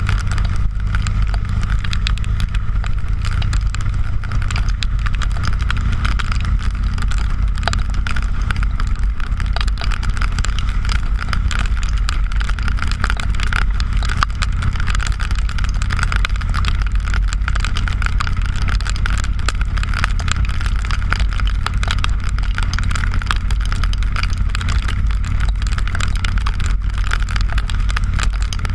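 Harley-Davidson motorcycle's V-twin engine running steadily at cruising speed, heard from a camera mounted on the bike, with wind and rain crackling on the camera.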